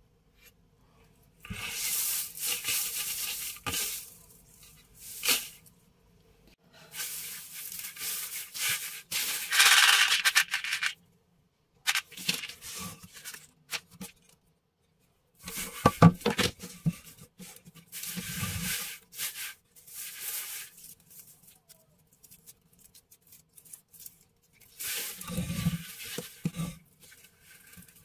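Dry natural raffia rustling and crackling in several bursts as hands gather and pull strands from the heap, with a few dull knocks on the tabletop.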